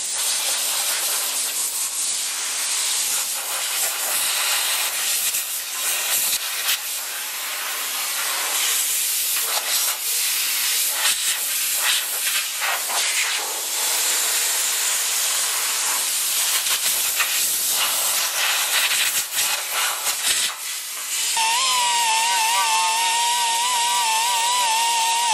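Compressed-air blow gun hissing in long blasts, blowing sanding dust off a bumper reinforcement. About 21 seconds in the hiss stops and a pneumatic angle die grinder with a small sanding disc starts, a steady whine that wavers slightly in pitch.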